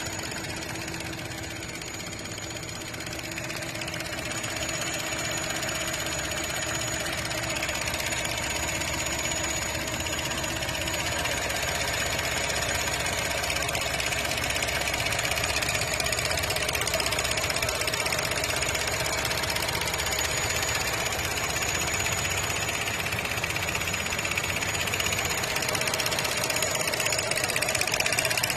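Chevy Cruze engine running with a loud, ugly noise, growing a little louder after about four seconds.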